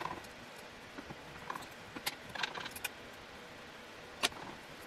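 Faint, scattered metallic clicks and light scrapes of an Allen key turning the adjustment screws in the steel bar of an Incra 1000HD miter gauge, with a sharper click about four seconds in.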